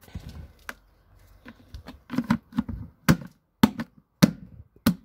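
Plastic Ford wheel trim being knocked onto a steel car wheel by hand: a quick series of sharp taps and thumps that come faster from about two seconds in as it is pushed home.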